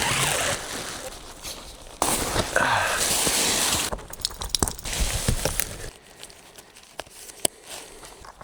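Tent fabric rustling and crinkling as the tent is pitched. The loudest burst comes about two to four seconds in, followed by scattered crunches and clicks that thin out toward the end.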